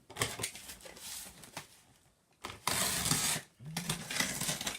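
A cardboard box being cut and torn open by hand: scraping and clicking of the blade and card, then a loud rip of cardboard for nearly a second about two and a half seconds in.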